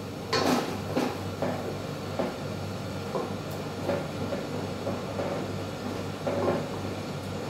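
A wooden spoon stirring thick sauce in an aluminium pot, scraping and knocking against the pot at irregular moments, over a steady low hum.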